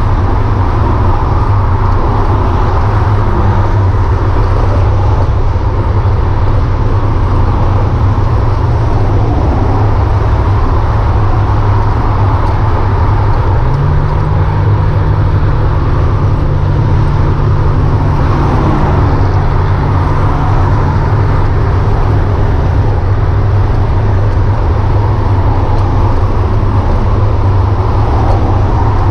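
Freeway traffic passing in the adjacent lanes: a constant rush of tyre and engine noise over a heavy low rumble, heard from the shoulder of a multi-lane highway. A steady lower engine hum joins about halfway through and holds for several seconds.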